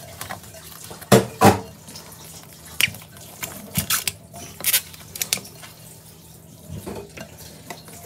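Kitchen dishes and utensils clattering: several sharp clinks and knocks at irregular intervals, over a low steady hum.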